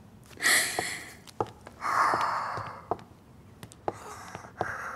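A person breathing hard in distress: two long, breathy sighs about a second and a half apart, the second the louder, with faint clicks and taps between.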